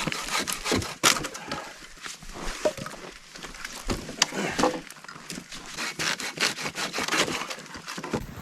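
Dry dead pine wood being cut and broken for firewood: irregular sharp cracks, snaps and splintering.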